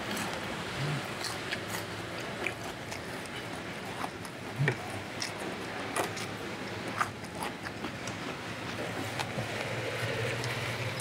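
A man eating with chopsticks: chewing and biting, with scattered light clicks of the chopsticks against plates over a steady background hiss.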